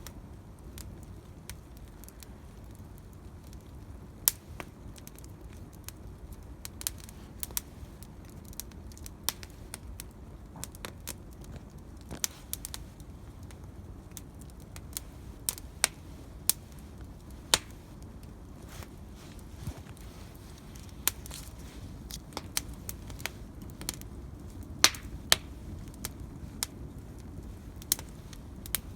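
Bonfire crackling: irregular sharp pops and snaps of burning wood over a steady low rumble, a few pops much louder than the rest.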